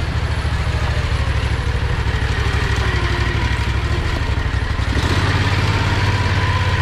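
Predator 670 V-twin engine of a home-built go-kart running steadily under way, its firing pulses even; about five seconds in its note changes and gets slightly louder.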